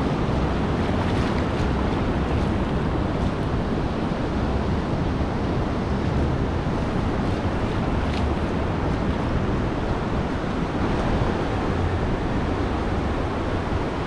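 Steady wash of ocean surf breaking on the beach, with wind buffeting the microphone in a low rumble.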